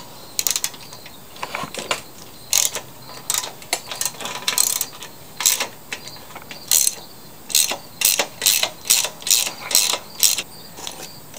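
Socket ratchet wrench clicking in short bursts as it is swung back and forth, backing out a 3/8 bolt that holds the lawn mower's recoil starter. About a dozen bursts, coming faster in the second half.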